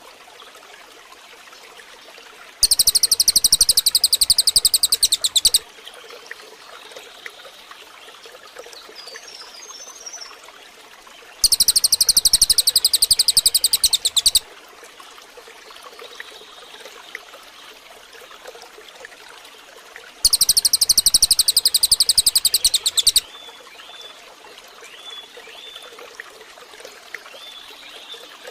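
Recorded songbird song for bird training: three loud bursts of a very rapid, high trill, each about three seconds long and about nine seconds apart, over a faint bed of trickling water with a few soft chirps in between.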